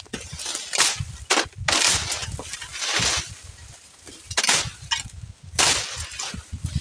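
Brush and banana undergrowth being slashed by hand: about half a dozen swishing, crushing cuts through vegetation, a second or so apart, with rustling in between.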